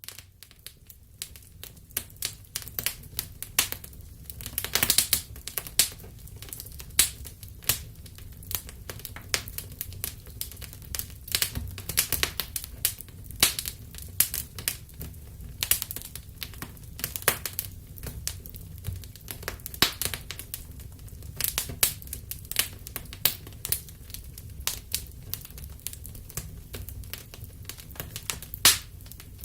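Wood fire in a fireplace crackling: irregular sharp pops and snaps, several a second, some louder cracks, over a steady low rumble of the flames.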